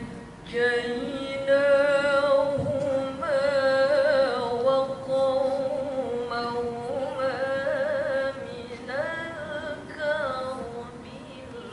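A woman chanting Qur'an recitation (tilawah) into a hand microphone: long drawn-out phrases of held notes with wavering, ornamented turns, breaking off briefly near the start and trailing off near the end.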